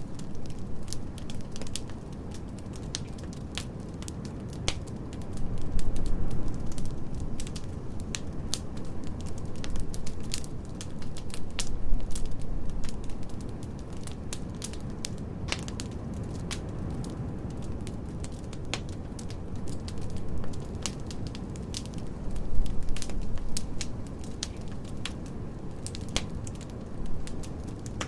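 Fire in a fireplace crackling: many irregular sharp pops and snaps over a steady low rumble.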